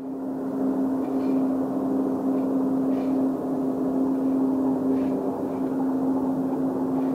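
Jet engines of a Boeing 777-200 airliner running as it rolls along the runway: a steady drone with one strong held tone.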